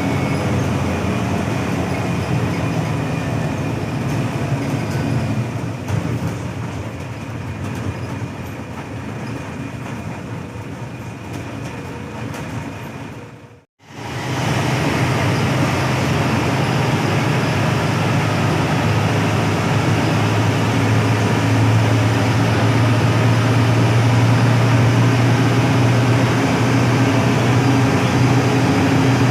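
Steady low rumble of the Hino AK8 front-engined bus on the move, engine and road noise together. About halfway through it cuts out abruptly for an instant and comes back louder, with a steadier engine hum.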